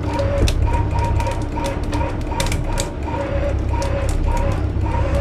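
A large fishing reel being cranked against a hooked fish, giving a stuttering whine in short repeated pulses mixed with rapid clicking, over a steady low rumble.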